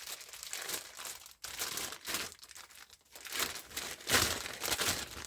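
Packaging being crinkled and rustled by hand in a run of bursts, the loudest about four seconds in.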